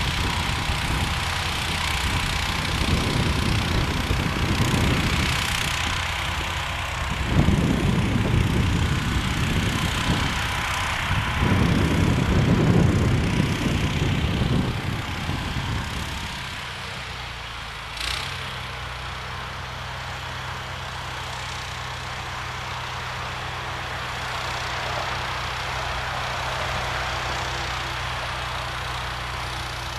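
The 16 hp engine of a modified John Deere 1032 snowblower running. It comes in louder, rougher surges through the first half, then settles about halfway through to a steadier, quieter hum, with one sharp click a moment later.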